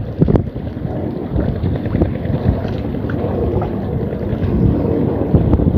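Wind buffeting the microphone: a steady low rumble with a few small knocks.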